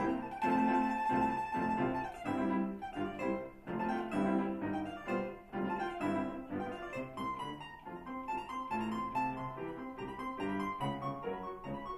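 Domra playing a melody with grand piano accompaniment, an August Förster grand, in a classical-style duet.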